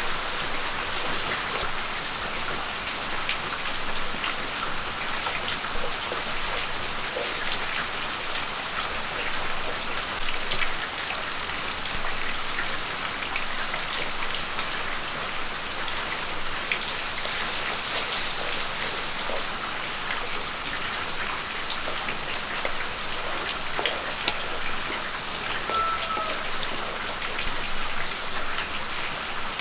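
Pickle masala of pearl onions, spice powders and curry leaves sizzling and crackling steadily in hot oil in a metal pan. About seventeen seconds in there is a louder hiss lasting a couple of seconds.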